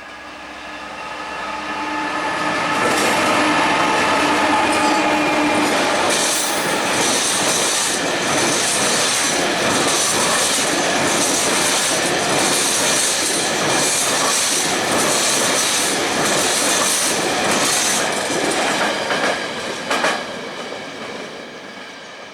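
A diesel train passing close by. Its engine note grows as it approaches, then comes a long run of regular wheel clatter with high-pitched wheel squeal, which fades away near the end.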